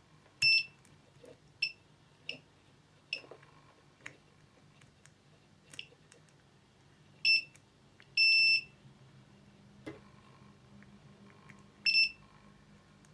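Digital multimeter's continuity beeper giving a string of short, high beeps at irregular intervals, one held for about half a second near the middle, with faint clicks of the probe tips. The probes are being touched across capacitors around a USB microphone's controller chip to test them for shorts to ground.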